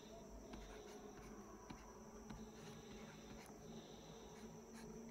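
Near silence: faint room tone with a steady high-pitched whine and a low hum, broken by a few faint ticks.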